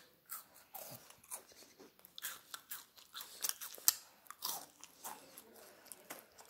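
Close-up chewing and crunching of a Kit Kat chocolate-covered wafer bar: a run of irregular crisp crunches, the sharpest about four seconds in.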